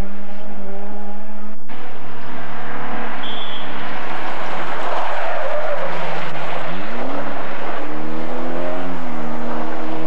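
Rally car engines running hard on a gravel forest stage. After a sudden cut, a second car passes with a rush of spraying gravel in the middle, and its engine revs up again near the end.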